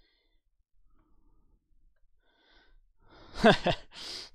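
Near silence for about three seconds, then a man's voice near the end: a short murmured sound falling in pitch, followed by a breathy hiss.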